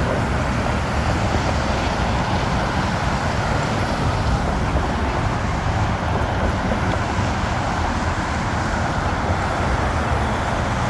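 Steady road traffic noise: cars and other vehicles passing on a busy road, a continuous rumble and tyre hiss.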